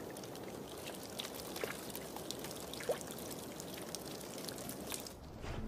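Shallow meltwater trickling and running over thawing ice, with scattered small splashes and drips that give short rising plinks.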